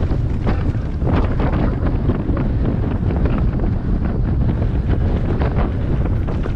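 Wind buffeting the microphone of a camera on a moving e-mountain bike, a heavy low rumble, with frequent short knocks and rattles from the bike jolting over rough ground.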